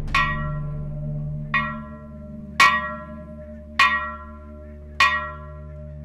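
A church bell tolling: five strikes about a second and a quarter apart, the first two softer. Each strike rings on and fades over a low, steady hum.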